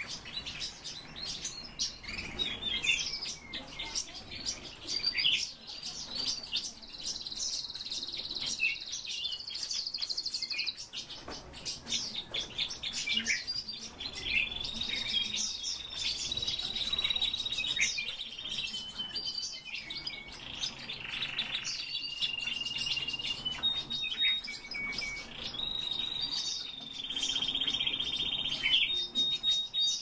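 Caged songbirds singing and chirping: a continual run of quick chirps and twitters, broken by several long trilled notes each held on one high pitch.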